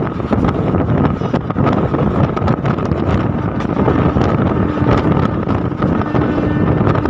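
Passenger train running at speed: a steady loud rush of wheel-on-rail noise, with many short clicks and wind buffeting the microphone.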